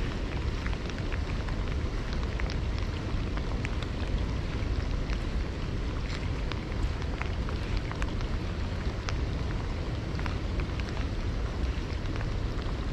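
Rain falling on a river's surface: a steady hiss sprinkled with many small drop ticks, over a low steady rumble.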